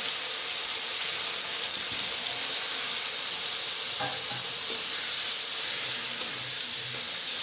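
Ground spice paste and fried potato wedges sizzling steadily in hot oil in a kadai as the masala is fried down, stirred with a metal spatula.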